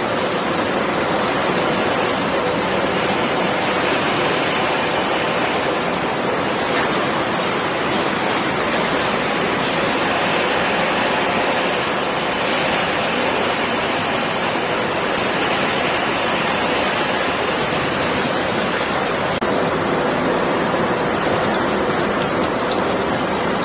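Refrigerator shredding and separation line running: a steady, dense rushing din with a faint constant hum and no separate impacts.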